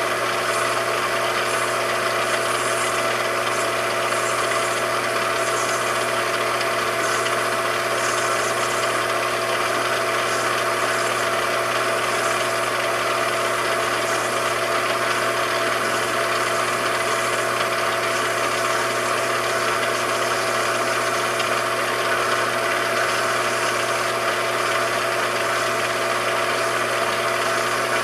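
A metalworking machine tool running steadily, its motor giving a constant hum with a few steady tones over an even mechanical whir.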